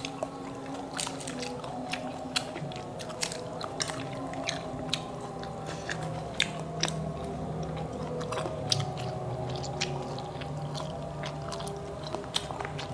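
Close-up sounds of eating buah motoa: the fruits' rinds cracking and peeling by hand, and the flesh being chewed, with frequent short sharp clicks and crunches.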